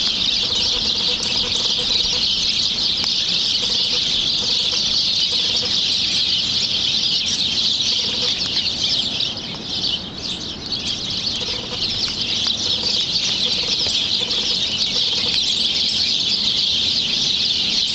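A dense, continuous chorus of bird chirping and chattering, briefly thinning about ten seconds in.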